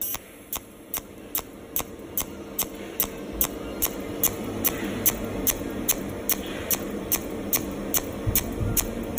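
Cold welding machine's torch pulsing on thin 0.8 mm stainless steel plate: each pulsed discharge is a sharp tick, about two and a half a second in an even rhythm, over a steady low hum.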